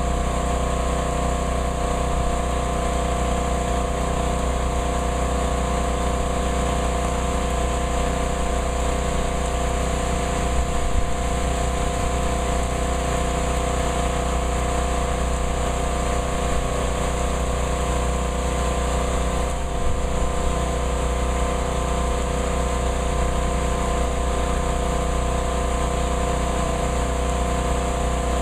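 Steady rainfall with a constant motor hum under it, holding several unchanging tones throughout.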